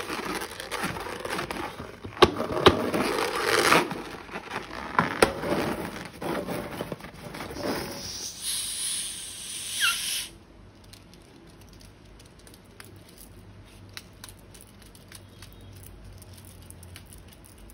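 Hands working slime and its plastic and rubber containers: crackling, crinkling handling noise with sharp clicks for about ten seconds, ending in a hiss and a brief squeak. The sound then drops to faint sticky clicks and squishes of slime being worked.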